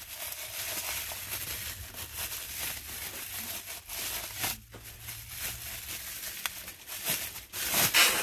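Packaging crinkling and rustling as a coffee mug is unwrapped and handled, in uneven bursts, loudest just before the end.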